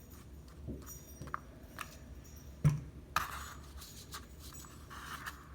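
Glue being rubbed onto paper on a tabletop, a scratchy rubbing with scattered small clicks of handling. One knock on the table about two and a half seconds in is the loudest sound.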